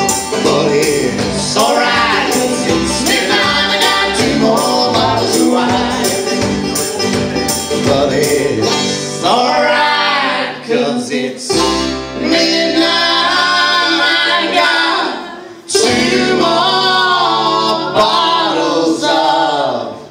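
Live acoustic bluegrass-style band playing and singing: strummed banjo and acoustic guitar over upright bass and kick drum, with voices in harmony. About halfway through the strumming falls back and the voices hold long notes.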